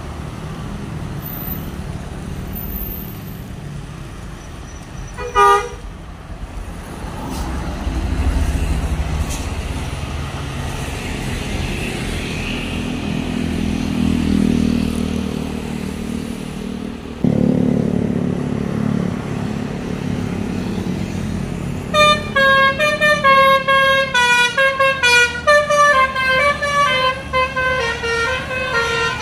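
Road traffic passing, with a short horn toot about five seconds in and a heavy engine coming in loudly around seventeen seconds. From about twenty-two seconds in, a tour bus's multi-tone musical horn (an Indonesian "telolet" horn) plays a quick stepping tune.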